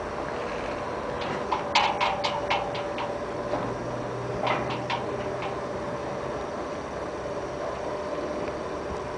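Steady machinery hum, with a quick run of sharp clicks or knocks about two seconds in and a few more around the middle.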